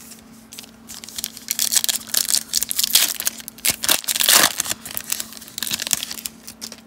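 Foil wrapper of a Donruss baseball card pack crinkling and tearing as it is ripped open by hand: a run of crackly bursts starting about a second in, loudest around the middle.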